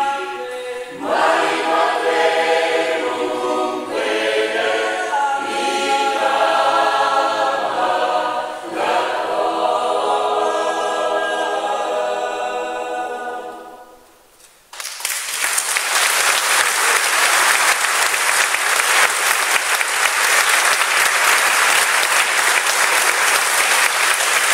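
Choir singing the last phrases of a song, ending on a held chord that dies away about fourteen seconds in. After a brief hush the audience breaks into steady applause.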